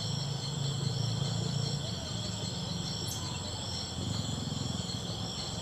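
Steady chorus of insects (crickets or cicadas): several high, even tones held without a break. Underneath runs a steady low rumble, and one brief high chirp comes about three seconds in.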